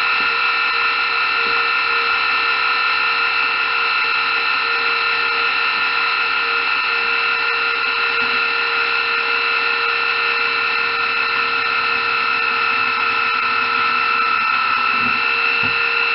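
A small electric motor running at a steady speed with a constant high whine, like a power tool in a workshop.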